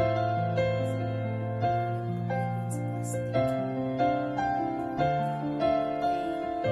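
Background piano music: a slow melody of single notes struck about every half second over held low bass notes.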